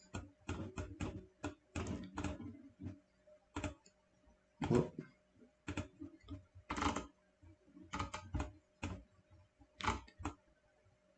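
Computer keyboard and mouse being clicked and tapped at an irregular pace while working through documents on screen, with a heavier knock about five seconds in.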